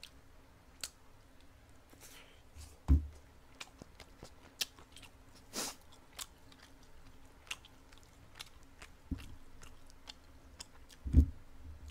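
A man chewing and biting pieces of braised spicy chicken close to a microphone, with scattered wet mouth clicks and smacks. There are a few brief low thumps, about 3, 9 and 11 seconds in.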